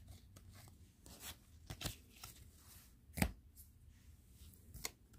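Faint, scattered taps and slides of trading cards being handled and flipped through, with one sharper tap about three seconds in.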